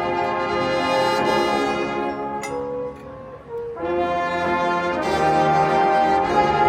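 High school marching band brass playing loud sustained chords. It drops to a softer held note about three seconds in, then comes back in on full chords.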